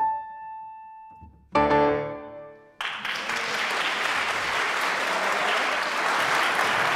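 Grand piano: a single high note rings and fades, then a loud final chord is struck about a second and a half in and dies away. Audience applause breaks out about three seconds in.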